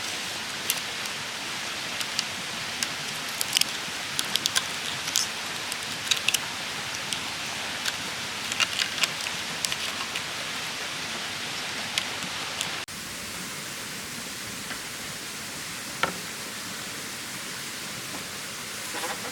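A steady, even hiss of outdoor noise with many scattered sharp clicks and taps over the first two-thirds. The background changes abruptly about thirteen seconds in, after which only a few clicks remain.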